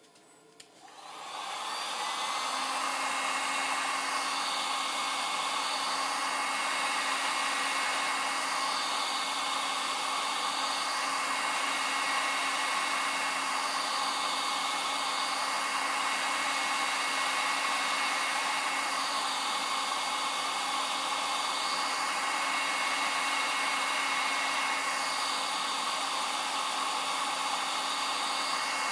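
Electric heat gun switched on about a second in, then blowing steadily with a constant hum, aimed at a freshly thrown clay goblet stem on the wheel to dry and stiffen it.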